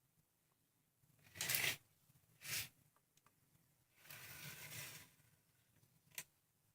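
Quiet handling noises: a few short scrapes and rustles, one lasting about a second, and a sharp click near the end.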